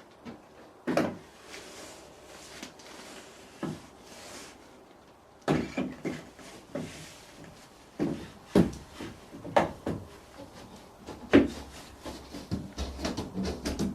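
Window cleaning: irregular knocks and bumps against the window and frame, with stretches of soft wiping noise between them.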